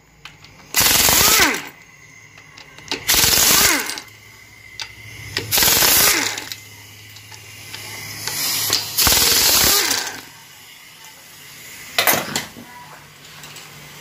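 Impact wrench hammering in five short bursts, each under a second, its pitch rising and falling within each burst, as it spins out the bolts of an automatic transmission case.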